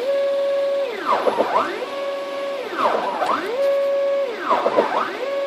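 3D printer's stepper motors singing as the print head sweeps back and forth laying the final top layer of a print. Each pass is a whine that rises to a steady tone and holds, then a cluster of quick rising and falling tones as the head changes direction, repeating about every 1.6 seconds.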